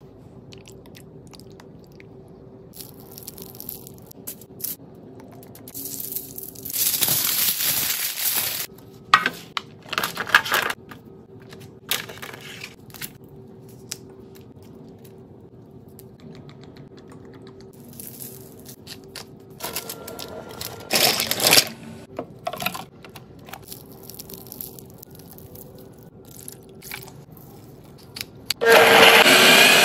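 Food-preparation noises in several short loud bursts of crunching and tearing, ending with a wooden pepper mill grinding for about a second.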